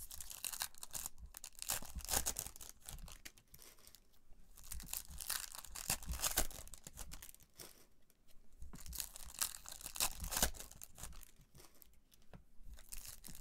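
Card box or pack packaging crinkling and tearing in several bursts, a few seconds each, with short pauses between.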